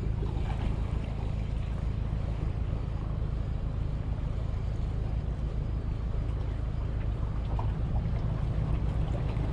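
Steady wind buffeting the microphone as a constant low rumble, with choppy water washing against the jetty rocks.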